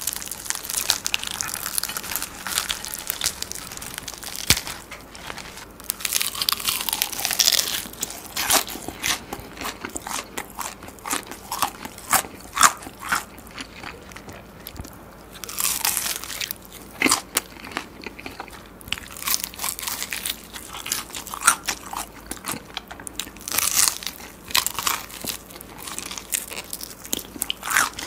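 A whole deep-fried Korean market-style chicken being torn apart by hand and then bitten and chewed, the fried batter crackling and crunching close to the microphone in clusters of crisp clicks.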